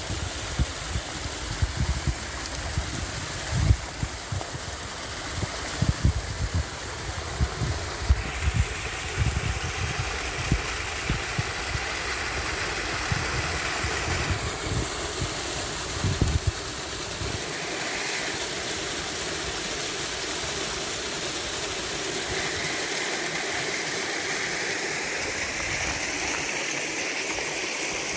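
Steady rushing noise like running water, with wind buffeting the microphone in low thumps through the first half.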